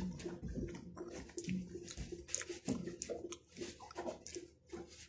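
Close-up chewing of a soft fruit jelly lolly: irregular wet mouth smacks and clicks throughout, over a faint steady low hum.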